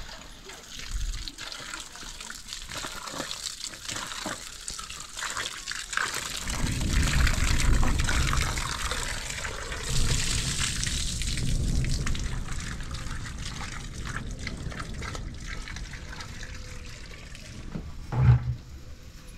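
Water running from the tap of a metal water tank into a steel bowl while tomatoes are rinsed by hand. The bowl's water is then poured out and splashes on the ground, the loudest stretch coming from about six to thirteen seconds in. A short thump near the end.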